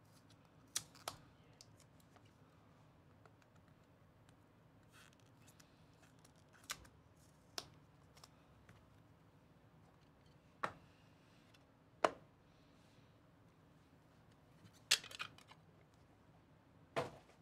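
Hard plastic trading-card box and its clear plastic wrapper being pried and pulled open by hand: about eight short, sharp plastic clicks and snaps, scattered a few seconds apart, with a quick run of them near the end.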